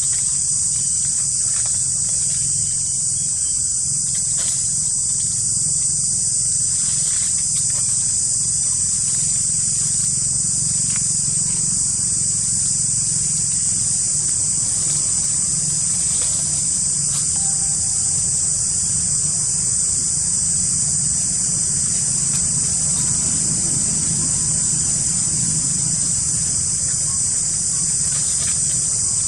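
Loud chorus of insects: a steady high-pitched drone that does not let up, over a low steady hum.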